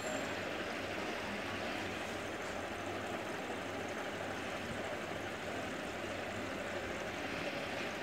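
Aquarium water moving with its filtration running: a steady rushing noise with a low hum beneath it.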